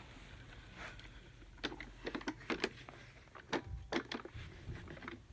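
Irregular light clicks and knocks from handling a paused Robit V7S Pro robot vacuum as it is picked up and moved.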